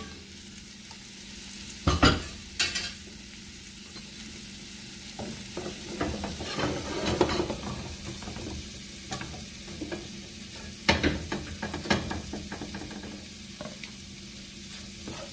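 Shrimp and scrambled egg frying in a pan, a steady light sizzle, with several sharp metal clanks as pans and a coffee pot are moved about on the gas stove grate, the loudest about two seconds in and again about eleven seconds in.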